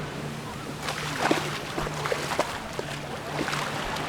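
Small Mediterranean waves washing onto a sandy beach, with a few short clicks and snatches of distant voices about a second in.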